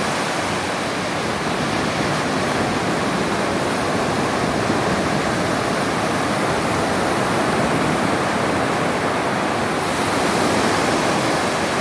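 Steady wash of small waves breaking on a sandy beach, a little louder near the end.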